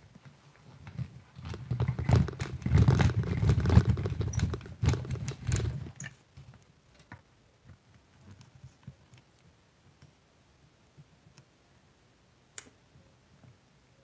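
Tripod being lowered with the camera on it: a few seconds of knocking, rattling and bumping on the microphone, then only a few faint scattered clicks.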